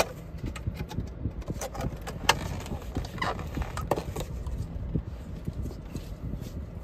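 Clear plastic clamshell food container being pried open: a run of irregular clicks and crackles of the stiff plastic lid, with a few brief squeaks, over a low steady rumble.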